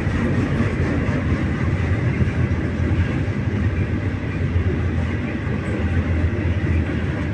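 CPKC local freight train rolling past with a steady low rumble.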